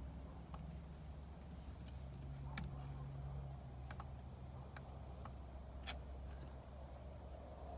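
Shortwave radio receiver tuned to a weak signal: faint hiss over a low hum, with scattered sharp clicks every second or so.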